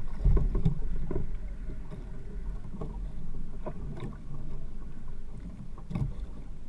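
Water lapping and sloshing against a small wooden outrigger boat's hull, with wind rumbling on the microphone and a few short knocks scattered through.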